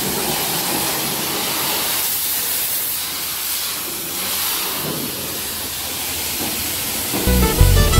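High-pressure washer wand spraying a jet of water against a pickup truck's body panels, a steady hiss. Music with a heavy bass comes in about seven seconds in.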